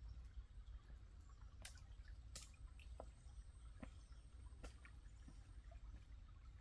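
Near silence: a faint low rumble with a handful of faint, sharp clicks at irregular intervals.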